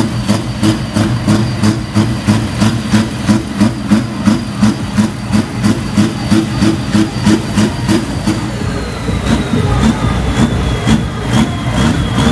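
Heavy tractor diesel engine idling with a lumpy, regular beat about three times a second, under a thin high whine that slowly falls in pitch.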